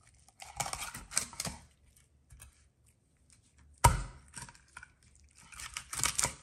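Large kitchen knife splitting a small whole raw chicken in half on a wooden board: bursts of crackling crunches as the blade is pressed through bone and cartilage, with one sharp knock a little before the four-second mark.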